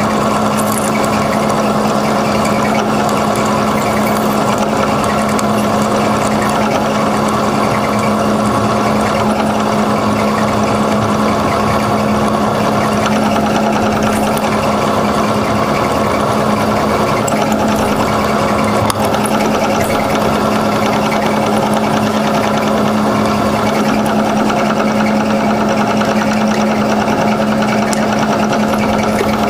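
Milling machine spindle running steadily under load as a twist drill bores into a metal chuck backing plate, a constant machine drone with a strong low tone.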